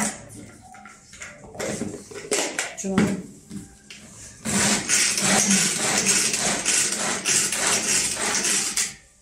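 Small manual food chopper with a red bowl and white lid chopping bell pepper pieces. First a few knocks and clatter as the bowl and lid are handled, then, about four and a half seconds in, a loud dense rattling and whirring of the blades as it is worked over and over, stopping suddenly near the end.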